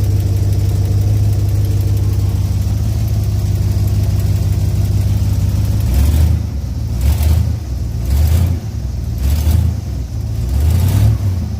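The recently re-ringed engine of a 1967 car, with new valves, idling steadily. From about halfway on it is revved in about five short blips, roughly one a second.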